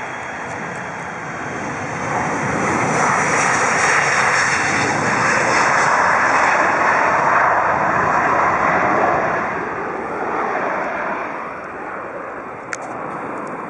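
Lufthansa Boeing 737's twin jet engines at takeoff power on the takeoff roll: a loud, rushing engine noise that swells as the jet passes, then fades as it moves away. A high whine falls in pitch as it goes by.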